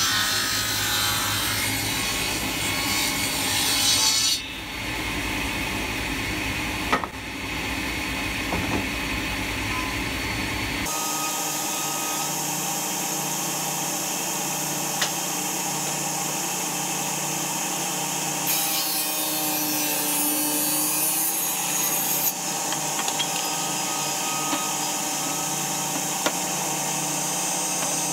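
Circular table saw running and cutting through a thick block of red hardwood, a steady machine hum under the noise of the blade in the wood. The sound changes abruptly a few times, about 4 and 11 seconds in and again near 18 and 22 seconds.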